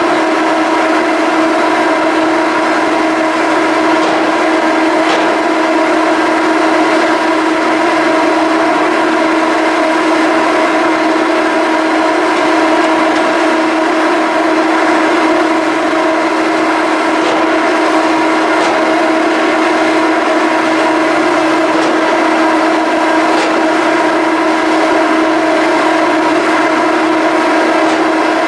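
A ferry's machinery running with a loud, steady hum: one strong low tone with a stack of higher tones above it, unchanging in pitch and level. A fainter, deeper tone fades in and out every few seconds underneath.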